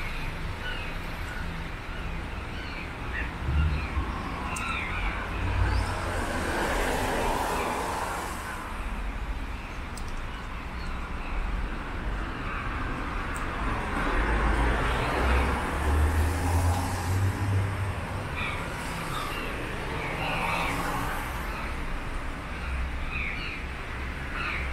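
Street traffic ambience: vehicles pass every few seconds, their noise swelling and fading over a steady low rumble, with tyre hiss from the wet road. Short high chirps are scattered throughout.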